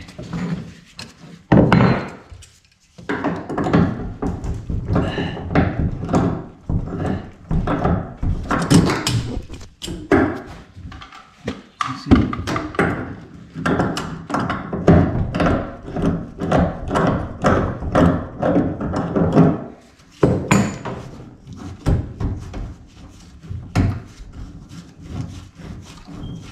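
Repeated knocks, thuds and rubbing of hands, tools and plastic pipework as a bath's plastic waste trap and pipe are worked loose by hand from underneath. The knocking runs almost without a break, with two short lulls.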